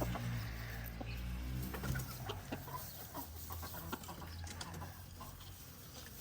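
A flock of free-range chickens clucking, with many short scattered calls over a low steady rumble, growing fainter toward the end.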